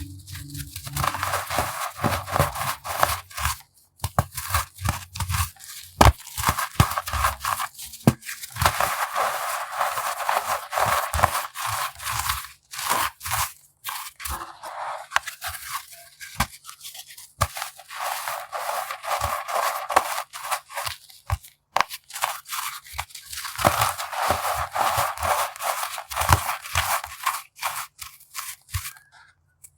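Compressed baking soda being crushed: dense crunching with many sharp crackles and snaps, coming in several stretches a few seconds long.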